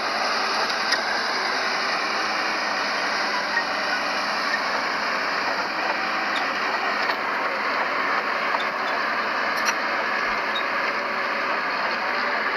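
Diesel engine of heavy earthmoving machinery running steadily, a continuous mechanical din with a few faint clicks and rattles.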